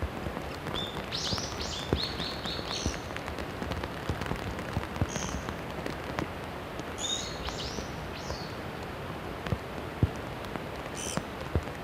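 Rain pattering steadily, with a small bird's quick series of high, falling chirps twice, about a second in and again about seven seconds in.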